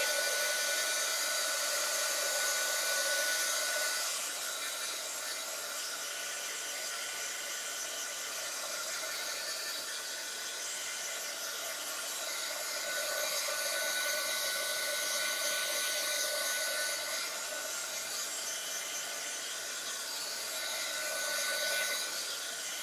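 A handheld blow dryer running steadily with an even airy rush and a faint high whine, drying wet acrylic paint and sprinkled water dots on a journal page.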